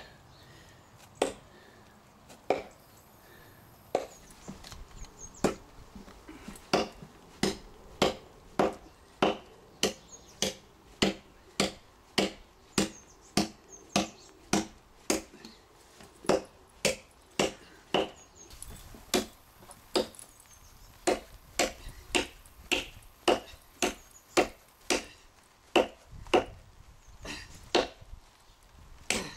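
Cold Steel Trail Hawk tomahawk chopping into a hard seasoned elm log: a long run of sharp, single chops. They come about one every second and a half at first, then settle to a steady pace of about three every two seconds.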